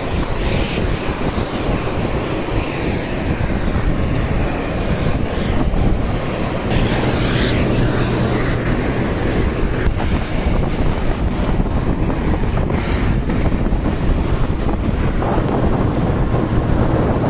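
Aircraft engine running nearby, a loud steady drone with no breaks.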